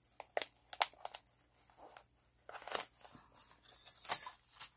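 Clear plastic pocket sleeve crinkling and rustling as paper embellishments are pulled out of it by hand. A few sharp clicks come in the first second, then a longer stretch of crinkling from about halfway in, loudest near the end.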